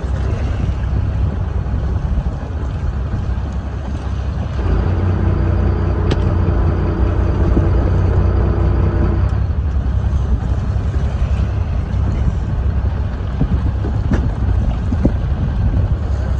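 Strong wind buffeting the microphone on a boat at sea: a steady low rumble. A steady hum joins for about four seconds, starting about five seconds in.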